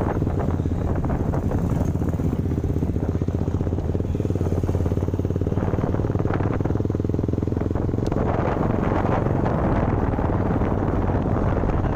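Motorcycle engine running steadily while being ridden along the road.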